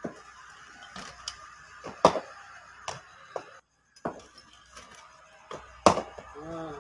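Sharp knocks and clacks from wheelchair cricket practice on a hard dirt pitch, irregular, the two loudest about two seconds in and just before six seconds. A short shouted call follows the last loud knock.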